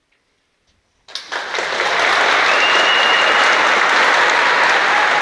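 Audience applauding in a large church. After about a second of near silence as the music ends, clapping breaks out suddenly and quickly swells into steady, full applause. A brief high whistle-like tone sounds over it near the middle.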